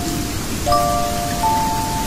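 Gentle music of long-held, bell-like notes, with new notes coming in about 0.7 s in and again about 1.5 s in, over a steady hiss of rain.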